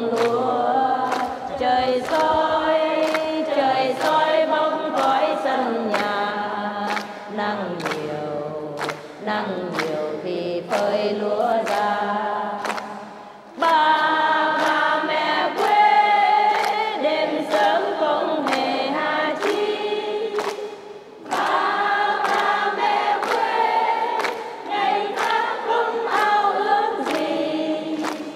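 A large group of people singing a Vietnamese song together in unison, over a steady beat of sharp strokes about twice a second. The singing drops away briefly about 13 seconds in and again about 21 seconds in.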